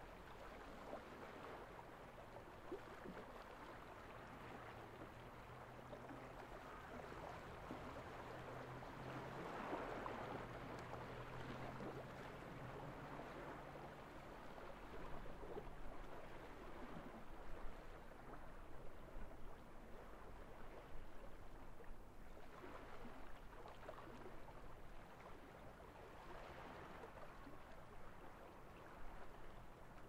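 Soft sea waves washing onto a gravel beach, swelling and falling back in slow surges, strongest about a third of the way in and again near the end.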